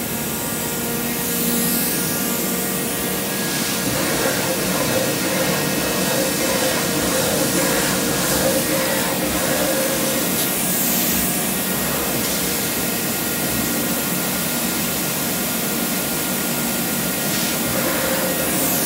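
Viotto CNC double vertical disc grinder running a grinding cycle: a steady mechanical noise with several steady hums under it.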